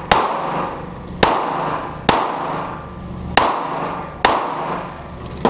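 Pistol fired five times at an uneven pace, roughly a second between shots, each shot echoing and dying away slowly off the concrete walls of an indoor range.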